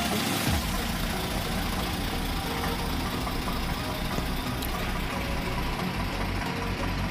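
Nissan truck's engine idling steadily.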